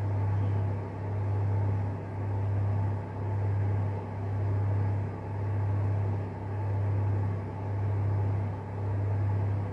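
Steady low electrical-type hum that swells and fades evenly about once a second.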